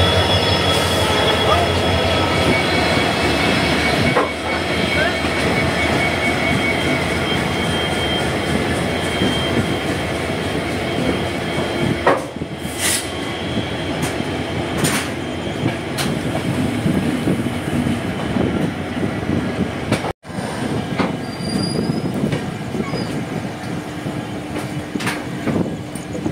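Passenger train rolling out of a station at low speed, heard from the coach: a steady rumble of wheels on rail with a faint wheel squeal and a few sharp clicks as the wheels run over rail joints and points. The sound cuts out for an instant about three-quarters of the way through.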